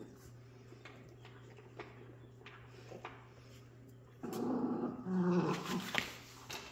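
Jack Russell Terrier puppy growling in two rough bursts about four seconds in, over faint ticks and shuffling from the puppies moving on the bedding.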